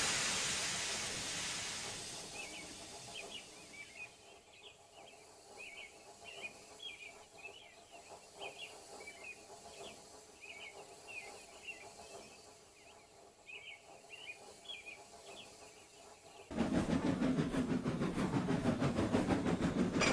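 Steam locomotive sound effects. A loud hiss of escaping steam fades away over the first two seconds, then comes a quieter stretch with faint high chirps over background ambience. From about 16 seconds in, a steam train runs loud and rhythmic.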